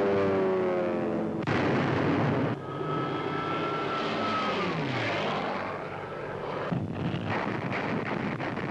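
Propeller aircraft engines in a dive, their drone falling in pitch, with a high whine that drops steeply about halfway through. Near the end, a run of sharp irregular cracks joins the engine noise.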